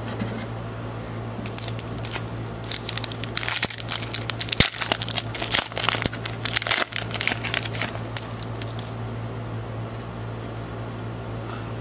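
Foil wrapper of an Upper Deck hockey card pack being torn open and crinkled in the hands, a dense crackling that starts about a second and a half in and dies away near the end.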